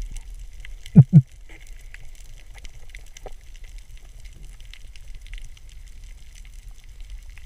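Underwater ambience picked up by a diver's camera: a low steady rumble with faint scattered crackling ticks, broken about a second in by two quick low thuds in a row.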